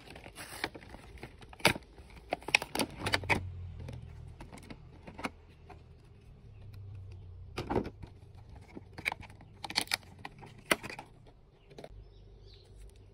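Plastic blister packaging and its cardboard backing being pulled apart and handled, giving irregular sharp crackles and clicks with brief rustles.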